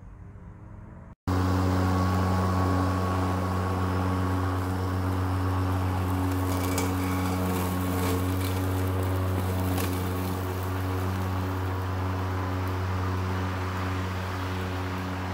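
Toro 60V Super Recycler battery-powered lawn mower running with its blade spinning, a steady electric hum that starts abruptly about a second in. A few light ticks come partway through as it is pushed through a pile of sticks, leaves and grass.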